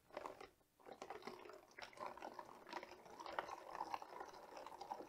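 Water poured from a clear plastic tub through a funnel into a plastic bottle: a faint, uneven trickling and splashing.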